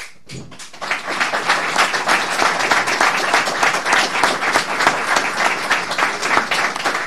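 Audience applauding: scattered clapping that swells to full, steady applause about a second in.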